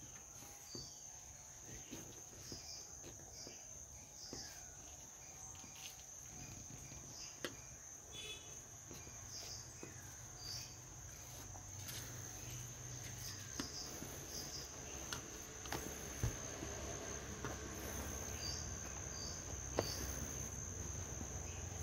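Steady, high-pitched drone of insects, with a few short chirps over it, and now and then a light tap or knock as hands work the rubber seal of a three-wheeler's rear window frame.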